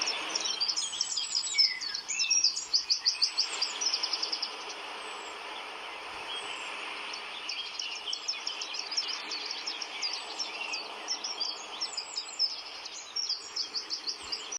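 Wild birds singing, with fast trills of repeated high chirps coming in runs of a few seconds, over a steady background hiss.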